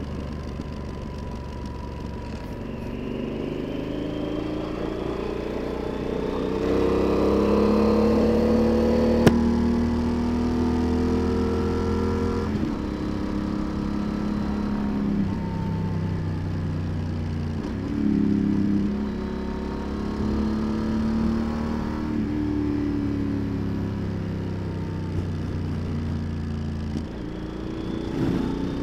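Yamaha XT1200Z Super Tenere's 1200 cc parallel-twin engine pulling along a country road, its pitch rising as the bike accelerates and dropping back several times as it shifts gear.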